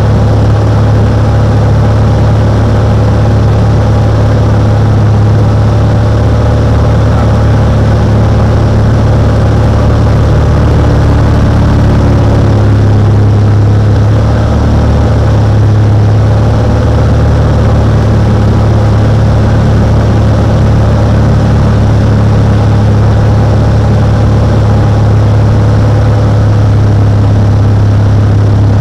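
Cessna 182's piston engine and propeller running steadily: a loud, even drone with a strong low hum.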